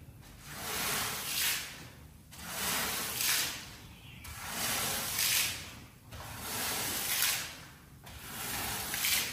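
Wet shaggy rug being worked in long repeated strokes, one hissing swish about every two seconds.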